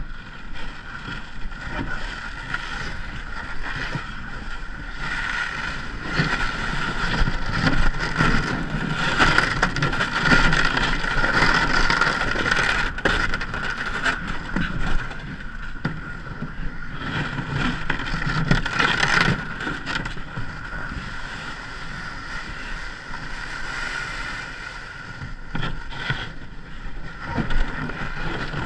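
Ice canoe under way on the icy river: a steady rushing noise of the hull moving through water and ice, with wind on the microphone. It grows louder in the middle and eases off after about 20 seconds.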